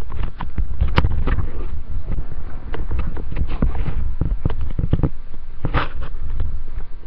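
Rubber balloon being batted and nosed around by a cat: an irregular run of soft taps and thuds, with one sharper click about a second in and a short rasp near the end, over a steady low rumble.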